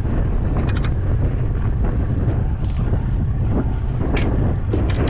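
Wind buffeting the microphone with a steady low rumble, and a few short clicks and taps about a second in and again near the end.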